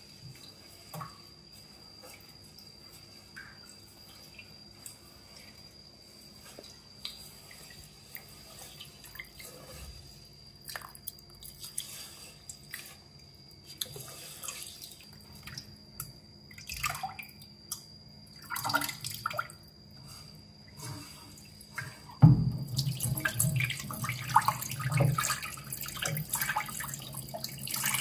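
Rice being washed by hand in water in a metal pot: faint swishing, small splashes and clicks of grains and fingers against the pot. About 22 seconds in, a louder continuous splashing starts as the cloudy rinse water is poured from the pot into the stainless steel sink.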